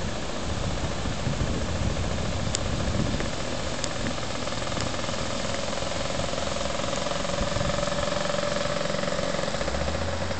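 Motor scooter engine running steadily as it rides, its hum growing stronger in the second half, over a steady hiss of wind and surf.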